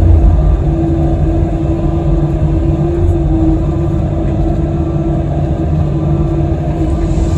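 Kobelco SK85 excavator's diesel engine running steadily under working load, a low rumble with a steady hum riding over it.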